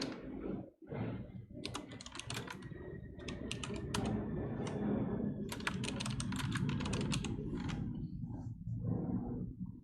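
Typing on a computer keyboard: bursts of quick keystrokes over a steady low rumble with a faint falling whine from an airplane passing overhead.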